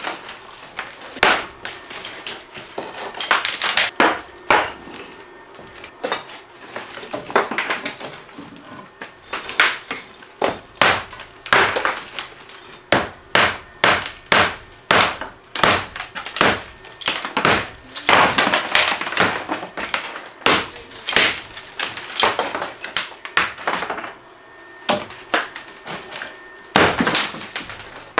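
Hand hammer striking old red chimney bricks and mortar to knock them loose: irregular sharp blows, sometimes in quick runs of several strikes, with broken brick clinking and crumbling.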